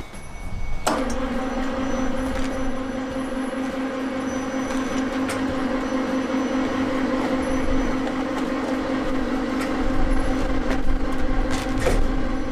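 Aikosha chemical mixer's bowl-lift drive switching on about a second in with a click and then running with a steady electric-motor hum as it raises the mixing bowl up toward the vacuum lid.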